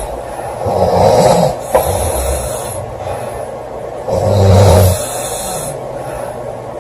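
A girl snoring loudly in her sleep: two heavy snores about three and a half seconds apart, with breathy air between them.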